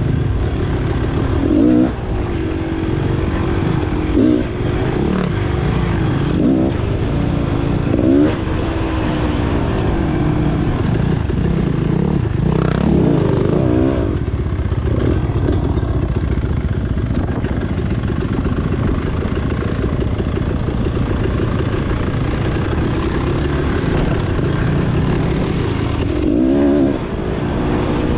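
Beta enduro dirt bike engine running under load on a trail ride, its revs rising and falling repeatedly as the throttle is opened and closed. There are several sharp rev rises in the first ten seconds, another about halfway and one more near the end.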